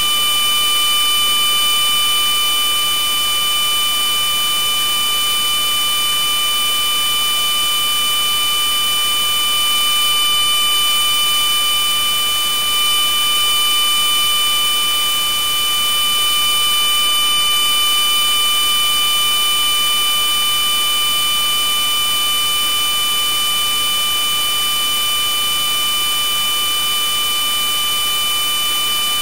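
Harsh electronic noise: a loud, steady hiss with several steady high-pitched tones layered on it, the strongest a piercing high whine, unchanging in level.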